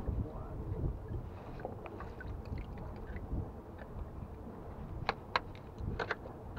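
Screwdriver driven with pliers against oyster shells on a rock, prying oysters loose: scattered sharp metal-on-shell clicks and taps, with louder strikes about five and six seconds in, over a low wind rumble.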